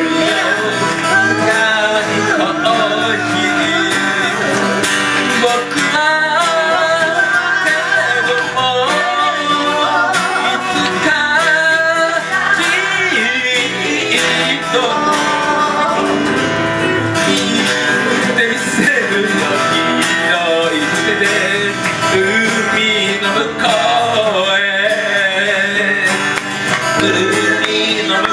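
A live band playing: several guitars, acoustic ones among them, strummed and picked under a man's singing voice.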